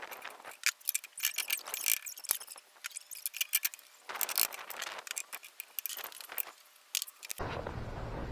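Irregular run of sharp clicks, rattles and short scrapes, as of tools and hardware being handled; near the end it cuts abruptly to a steady low hum.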